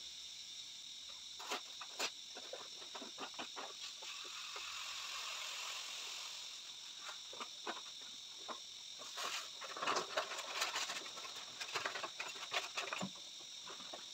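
Irregular clicks, taps and crinkles of a plastic bottle and a jar being handled, over a steady high-pitched hiss.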